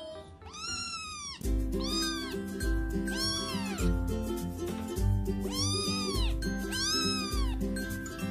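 A string of high-pitched cat meows, each rising and then falling in pitch, about one a second. Background music with a steady bass beat comes in about a second and a half in.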